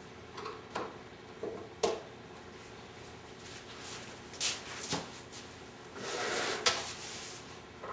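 Wooden cabinet parts being handled and fitted during assembly: a series of separate knocks and clicks, then a short scraping slide about six seconds in that ends in a sharp knock.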